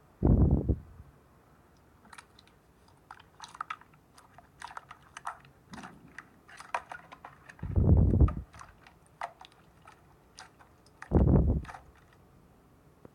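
Slime being squeezed and pressed by hand, giving off a run of small crackling pops and clicks, with three heavy low thuds, the first at the very start, others about two-thirds and four-fifths of the way through.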